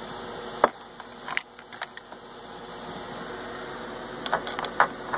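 Metal clinks and clacks of steel tool holders being handled and fitted onto a lathe's quick-change tool post: one sharp knock about half a second in, a few lighter ones after it, and a cluster near the end. A steady mechanical hum runs underneath.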